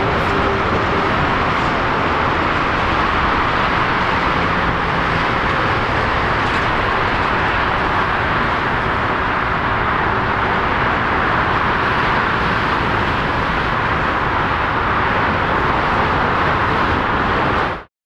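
Steady jet roar from a Boeing 737-800's CFM56 turbofans as it lands and rolls out on the runway, heard from a distance, with no rise or fall; it cuts off suddenly just before the end.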